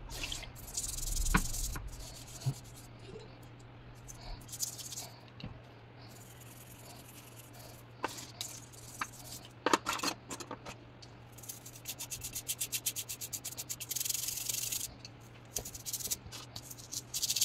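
A small toothbrush scrubbing silver jewelry wet with toothpaste and water to lift the tarnish, in short spells of quick back-and-forth strokes with a faster run near the end, and a few light clicks of the metal pieces.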